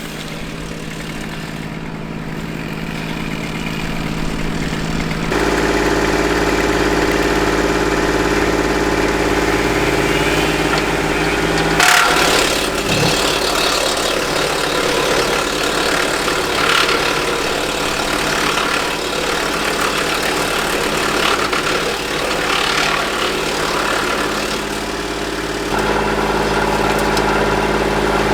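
Kubota L2501 compact tractor's three-cylinder diesel running steadily while driving a Woodland Mills WC46 PTO wood chipper. The engine note shifts abruptly about five seconds in and again near the end. A sharp crack about twelve seconds in is followed by irregular crackling.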